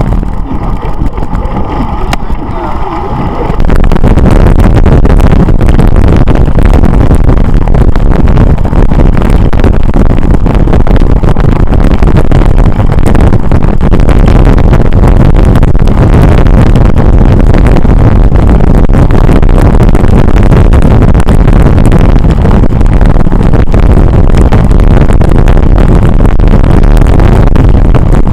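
Wind buffeting the microphone of a camera on a moving bicycle, a dense, loud rumble that sets in about four seconds in and holds steady. Before that, quieter riding noise with a faint steady whine.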